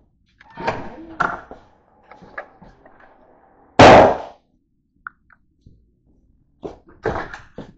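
Footsteps and handling knocks while walking through a corridor, with one loud bang about four seconds in and a quick run of steps near the end.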